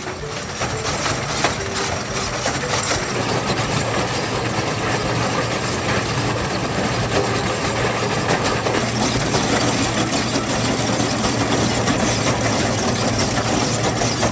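Trencher at work: its engine running steadily under a dense, continuous mechanical noise that slowly grows a little louder.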